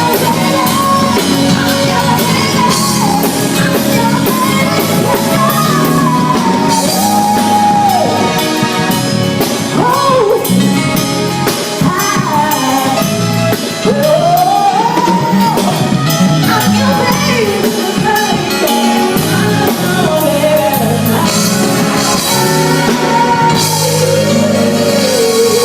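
A singer humming a wordless melody over a live band with drum kit and guitar, a verse run through at a sound check.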